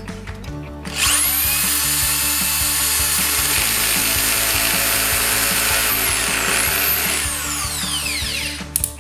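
Corded drill-driver motor spinning up with a rising whine about a second in and running at speed. Its pitch dips and picks up again, then winds down with a falling whine near the end.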